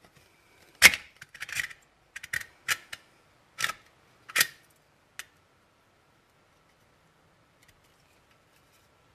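Thin sheet-metal stove parts clinking and scraping against each other as one piece is worked into the other: a string of about eight sharp metallic clicks over about five seconds, the loudest about a second in.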